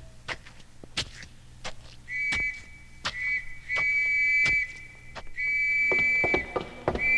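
Police whistle blown in repeated blasts, short and long, starting about two seconds in, with sharp knocks and clicks in between.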